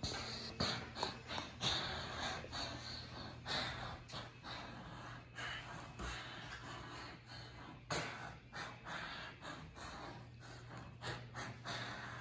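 Soft, irregular scuffs and shuffles of socked feet on hardwood and tile floors, mixed with breathy rustling close to the phone, over a faint steady low hum.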